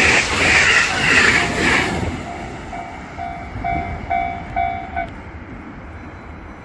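A train running over a level crossing, its wheel and rail noise loud for about two seconds and then fading away. Through it the crossing's warning bell rings about twice a second, coming out clearly as the train noise drops, and cuts off about five seconds in as the crossing clears.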